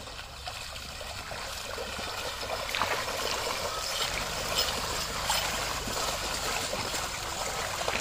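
Muddy water sloshing and splashing as a pair of bullocks drag a wooden leveling board through a flooded paddy field, their legs churning the mud. The sloshing grows louder about three seconds in, with a few sharper splashes.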